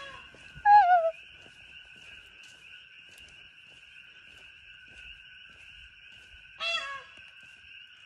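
Peacock calling: one loud call with a falling pitch about a second in, and a second, shorter call near the end, over a steady faint high-pitched background chorus.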